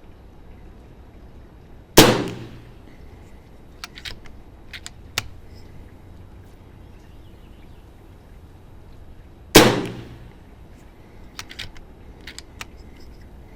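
FX DRS Pro air rifle firing 33.7-grain boat-tail slugs: two sharp shots about seven and a half seconds apart. A couple of seconds after each shot come a few light clicks.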